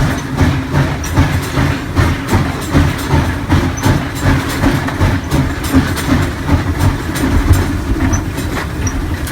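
Steam locomotive running under way with a string of cars behind it, a steady low rumble marked by regular heavy pulses about twice a second.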